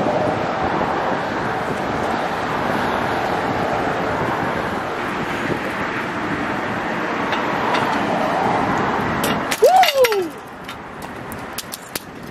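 Steady rushing noise of road traffic passing on the bridge. About ten seconds in comes a short loud squeal that rises and then falls in pitch, followed by quieter scattered light clicks and ticks.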